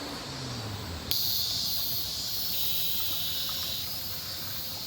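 A chorus of cicadas buzzing steadily in a high-pitched, unbroken drone, starting about a second in.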